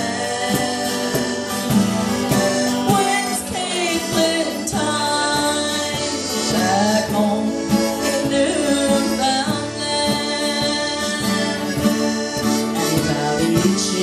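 Live acoustic folk band playing a tune: a strummed twelve-string acoustic guitar, a fiddle and a cajón beat.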